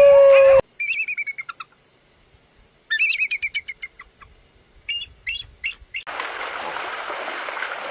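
A songbird chirping in quick high trills: two short bursts of song, then a few separate chirp notes. A held, howl-like tone cuts off just at the start, and a steady noisy hiss takes over near the end.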